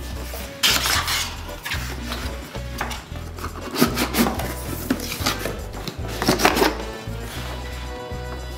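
Cardboard box and packaging being handled: irregular knocks, slides and scrapes as parts of a headphone box are opened and lifted out, loudest about a second in, halfway through and near the end. Background music with a steady bass beat runs underneath.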